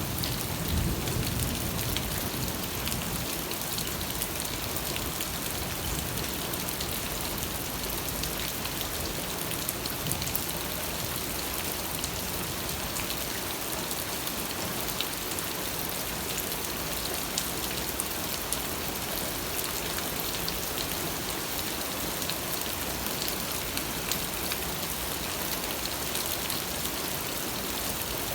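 Steady rain falling, a continuous hiss dotted with the ticks of individual drops, with a brief low rumble about a second in.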